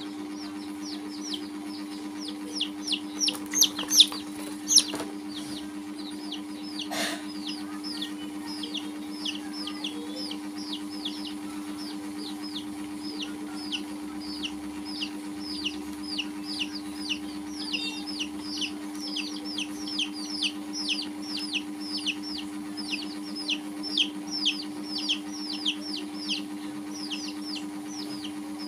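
Domestic chicks peeping: a steady stream of short, high, falling peeps, a few each second, louder for a moment a few seconds in. A steady low hum runs underneath.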